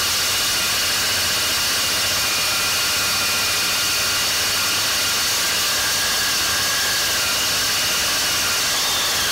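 RT-160 handheld core drill running steadily as its core bit cuts into a masonry wall, together with a vacuum cleaner drawing off the drilling dust through a hose at the bit: a steady high whine over a constant hiss.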